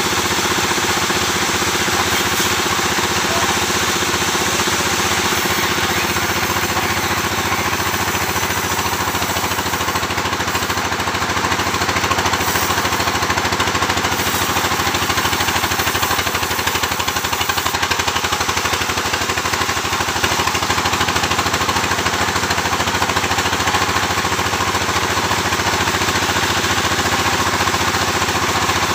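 Sawmill machinery running steadily and loudly: an engine-driven drone with a dense hiss over it, with no pauses or sudden changes.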